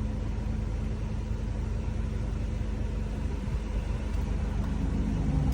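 Car engine idling steadily: a constant low rumble with a steady hum.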